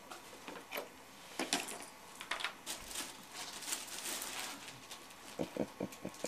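Cellophane wrapping on an Easter basket crinkling and rustling as a baby pushes against it, busiest about three to four seconds in.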